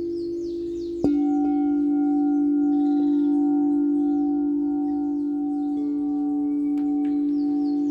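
Singing bowls ringing in a sound bath: a bowl is struck about a second in and rings on with a long steady tone over the hum of another bowl still sounding, and a softer strike follows near three seconds.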